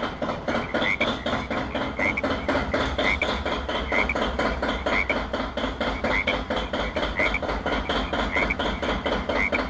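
Tractor engine chugging steadily with an even fast knock, about five or six beats a second. A short high chirp repeats about once a second over it.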